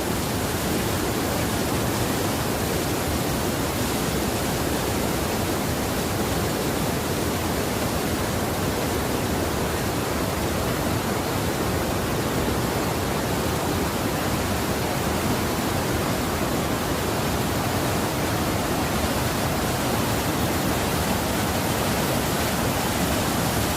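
A river rushing: a loud, steady roar of fast-flowing water.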